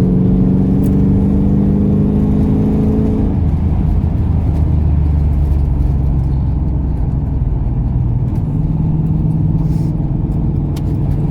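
Ford AU Falcon XR8's V8 engine heard from inside the cabin, pulling under load with a strong, even note. About three seconds in it drops to a lower, steady drone.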